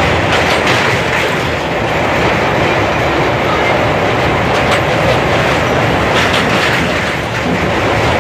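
Train running across a steel truss bridge, heard from inside a coach at an open window: a steady loud rumble and rattle of wheels on the rails, with a few sharper clacks.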